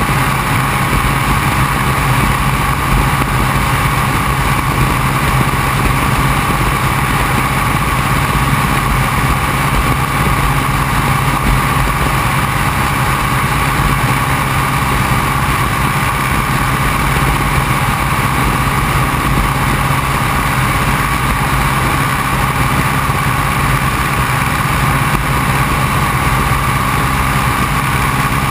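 Open-cockpit biplane in flight: the steady drone of its engine and propeller mixed with rushing wind, unchanging throughout.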